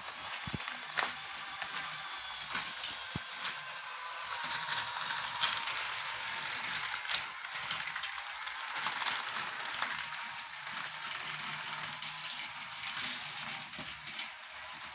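Model diesel locomotive's small electric motor and gear train running with a steady whirring, grinding gear noise and a few sharp clicks, the sign of noisy or poorly meshing gears.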